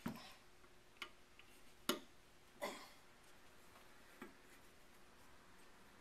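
A screwdriver turning out a screw in the action of a Gahendra Martini-Henry rifle: about five light clicks, irregularly spaced over the first four seconds or so.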